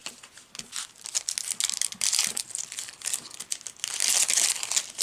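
Foil Yu-Gi-Oh booster pack crinkling and tearing as it is opened, a dense crackle that is loudest about four seconds in, after scattered clicks of trading cards being handled.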